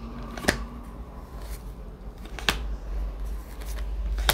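Tarot cards being handled, giving three sharp clicks about two seconds apart, the last the loudest, over a low steady hum.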